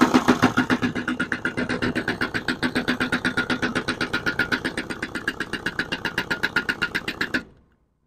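Impact wrench running on the clutch centre nut of a Honda Pridor 100cc engine, a rapid even rattle of about ten blows a second that stops suddenly near the end as the nut is driven tight.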